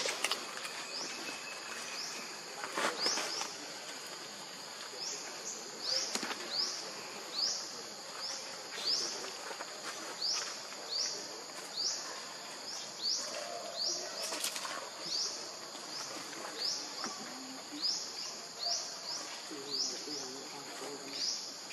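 Outdoor insect chorus: a steady high hiss with a short rising chirp repeating about one and a half times a second, and a few sharp clicks.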